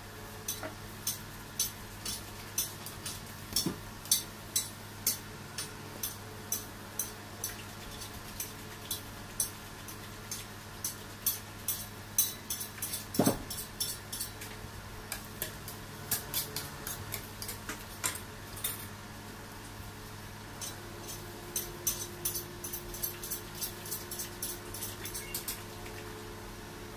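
Light clicks and taps of cake-decorating utensils, about two a second at first and denser in the middle, over a steady low hum.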